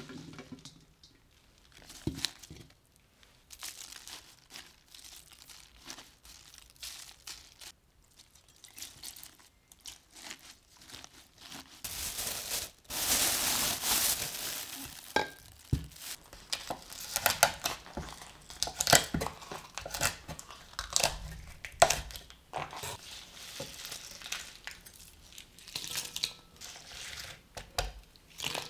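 Hands rustling pepper leaves in a stainless mesh colander, with light scattered clicks. About twelve seconds in, a plastic sheet crinkles steadily for a few seconds as it is pressed down over salted pepper leaves in a bowl, followed by irregular crinkles, ticks and knocks. Near the end, a knife touches a wooden cutting board.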